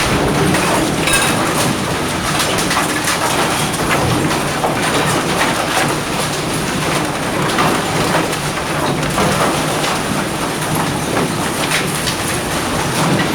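Debris-recycling plant machinery running: a steady mechanical hum under a constant clatter and rattle of construction and demolition debris moving through the sorting equipment.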